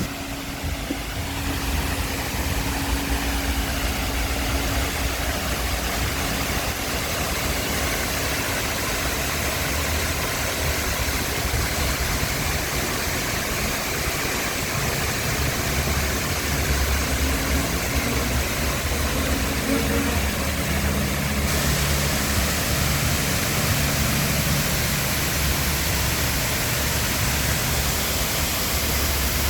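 Small garden waterfall splashing steadily, over a steady low rumble of vehicle engines.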